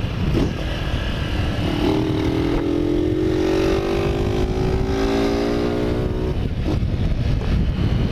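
Motorcycle engine running as the bike rides along, with wind and road rumble on the microphone. About two seconds in, a clear engine note comes up and slowly sinks in pitch until it drops away about six seconds in.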